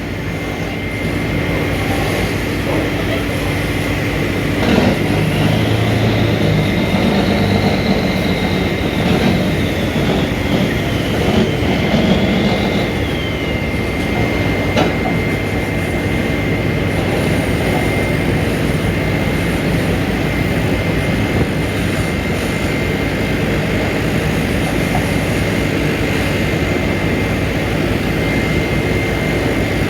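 Heavy diesel earthmoving machinery running steadily, with a constant high-pitched whine and a second whine that rises and falls for several seconds near the start.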